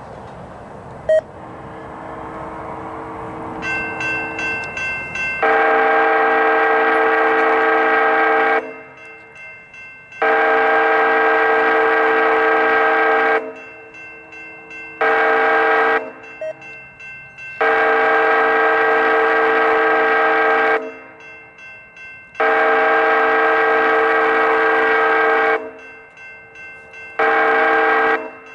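Amtrak locomotive horn blowing a chord of several notes in a series of long and short blasts in the grade-crossing pattern (long, long, short, long), which then starts again. The train's rumble rises for the first few seconds. The crossing bell rings rapidly in the gaps between blasts.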